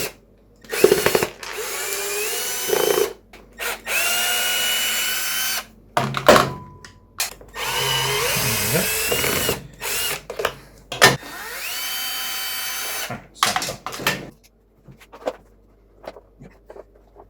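Cordless drill-driver whirring in about five short bursts, each rising in pitch as the motor spins up, with knocks and clicks of the tool against metal between them, as it works at a deep-set screw on a trials bike.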